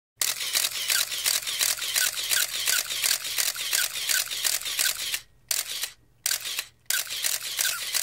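Camera shutter firing in continuous burst mode, about five shots a second. It pauses briefly about five seconds in, then fires three more short bursts.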